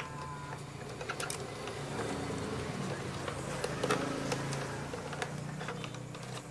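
Scattered light plastic clicks and rattles as wires are tucked into an opened Philips blender base and its plastic housing is handled, the sharpest about four seconds in, over a steady low engine-like drone.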